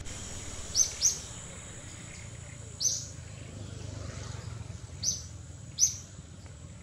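Wild birds chirping in short, high calls, five in all: a quick pair about a second in, one near three seconds and two more toward the end, over a faint steady high whine.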